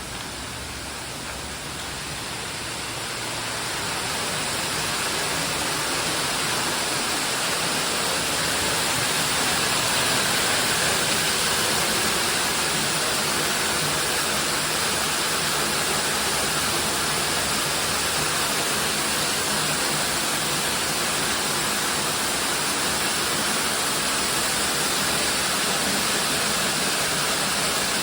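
Waterfall with a steady rush of falling water, growing louder over the first several seconds and then holding even.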